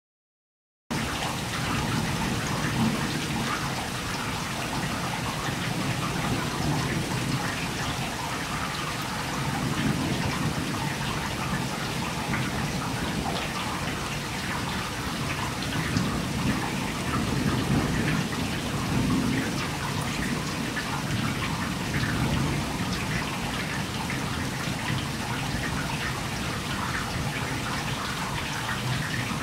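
Heavy rain pouring down on trees, parked cars and a wet street, a dense steady hiss that starts abruptly about a second in. Low rumbles of thunder swell and fade several times underneath.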